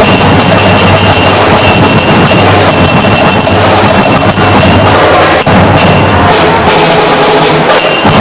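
Live percussion band playing a fast, dense drumbeat with sharp clacking hits and high ringing tones over it, very loud.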